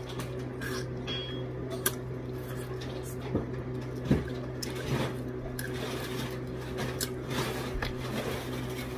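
Eating sounds: chewing and fingers picking shrimp off a plate, with scattered small clicks and taps. A steady low hum runs underneath.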